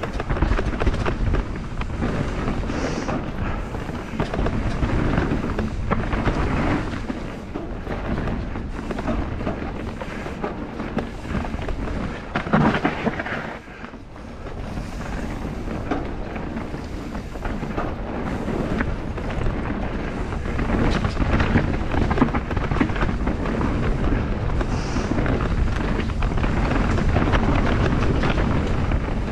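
Mountain bike riding fast down a rough trail: wind buffets the microphone and the tyres rumble over stones, with frequent knocks as the bike jolts. The noise eases briefly about halfway through.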